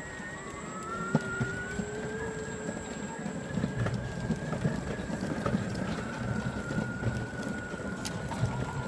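Yuneec E-GO electric skateboard rolling over paving stones. A steady electric motor whine climbs a little in pitch in the first couple of seconds, over a continuous rumble of the wheels on the cobbled paving.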